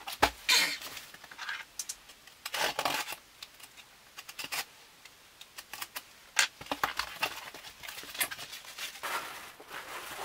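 A cardboard shipping box being opened and unpacked by hand: irregular bursts of scraping, crinkling and rustling from the cardboard and the tissue-paper wrapping inside.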